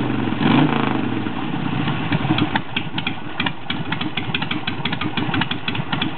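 Harley-Davidson Sportster 883's air-cooled V-twin running through Hooker Troublemaker pipes, a brief rise in revs about half a second in settling back to a choppy idle. The carburetor has just been rejetted and the mixture is still being tuned against a small backfire.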